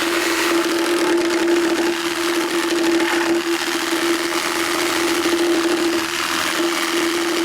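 Makita JR3050T 11-amp corded reciprocating saw running steadily, its motor giving a constant hum over a noisy buzz, with a few brief dips in level.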